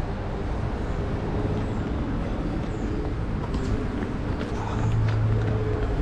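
Steady low rumble of a running vehicle engine and traffic, with a low hum that grows louder about five seconds in. A few light clicks come in the second half.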